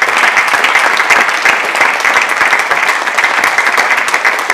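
Audience applauding: a dense, steady crowd of overlapping hand claps.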